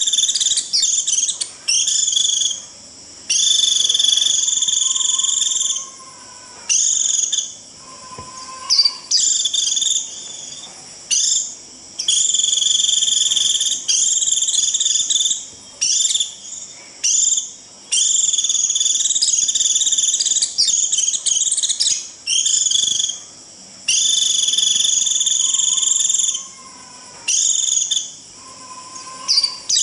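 White-eye (vành khuyên) giving its shrill, buzzy 'rít' call, the flock-gathering call used as a lure. The calls come as long high buzzing phrases of about two seconds each, repeated over and over, with short chirps between them.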